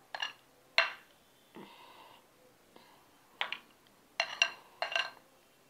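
Metal serving spoon clinking against a serving bowl and plate while food is spooned out: about six short ringing clinks, with a soft scrape about a second and a half in.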